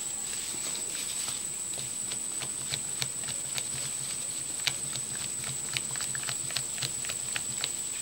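Silicone spatula stirring thick batter in a stainless steel bowl, with irregular light clicks and scrapes of the spatula against the metal. A steady high-pitched whine sounds underneath.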